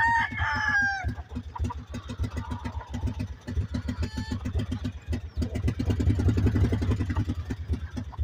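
Small engine of a ride-on vehicle running slowly with an even, pulsing putter. A rooster's crow trails off in the first second.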